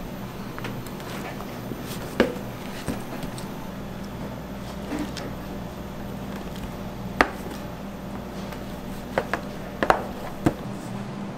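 Plastic bench scraper cutting through pizza dough and knocking against a stainless steel worktable: a few sharp taps, most of them clustered near the end, over a steady background hum.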